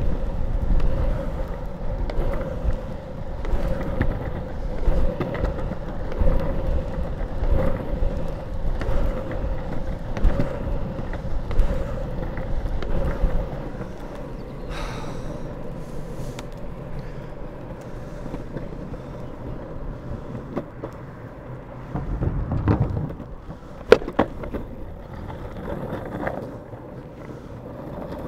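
Drop-through longboard wheels rolling on rough asphalt, a steady gritty roll with a constant hum. It is louder and bumpier while the rider kicks to push in the first half, then smoother and quieter as he cruises, with a sharp knock near the end as the wheels hit a crack or edge.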